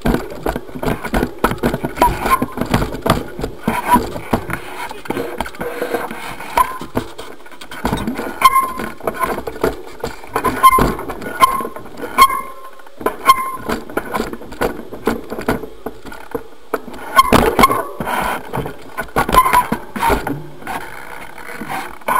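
Stunt mountain bike rattling and knocking as it is ridden, heard from a camera strapped to its front fork leg: a rapid, irregular run of sharp clacks and thuds, with short high squeaks in places.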